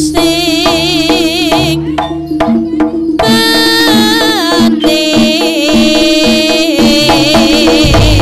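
Live Javanese jaranan music: kendang barrel drums beat sharply under a melodic lead whose pitch wavers and slides, over a steady pulse of repeated low gong-like notes.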